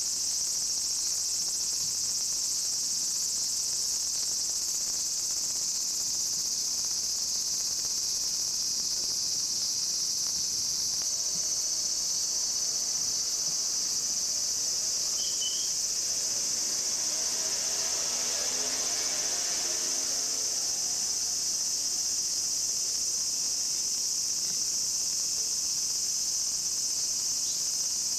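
Cicadas singing: a steady, high-pitched shrill chorus. About halfway through, the hum of a distant engine swells and fades under it.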